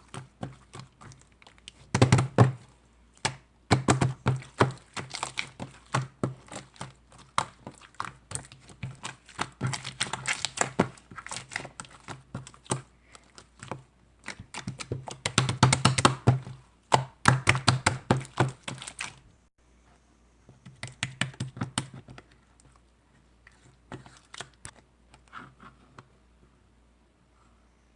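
Rapid runs of sharp clicks and taps in bursts of a few seconds with short pauses, growing sparser and quieter in the last third.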